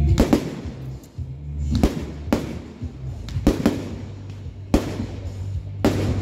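Aerial firework shells bursting in a string of about eight sharp bangs, unevenly spaced, over music with a steady low bass.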